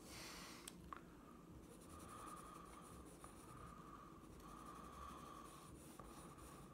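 Faint scratching of a Conté crayon shading on sketchbook paper, in several strokes of about a second each, with a few light taps.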